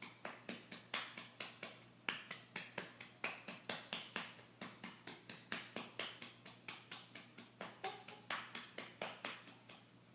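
A hand patting a baby's back to burp her, a steady rhythm of soft pats at about four a second that stops near the end.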